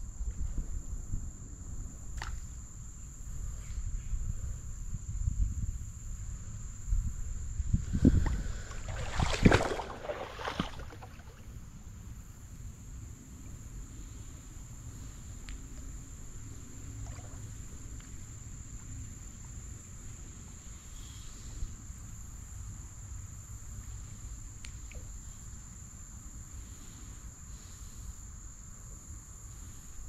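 Water sloshing and splashing in a shallow creek, loudest in a burst about eight to ten seconds in, then settling to a quieter steady outdoor background. A constant thin high-pitched whine runs underneath throughout.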